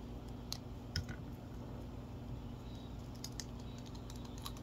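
Scattered small clicks and taps of doll parts and a parts bag being handled, over a faint steady hum.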